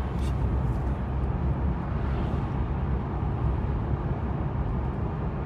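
Steady low rumble of a car driving along a highway, tyre and road noise heard from inside the cabin.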